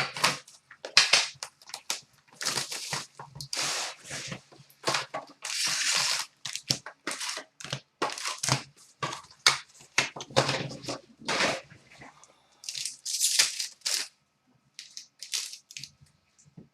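Hockey card box and its foil packs being torn open by hand: irregular bursts of tearing and crinkling wrapper, with a short pause about two-thirds of the way through.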